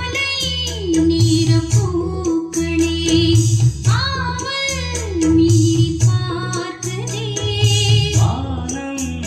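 A song with a woman singing long, wavering notes over a steady beat and heavy bass.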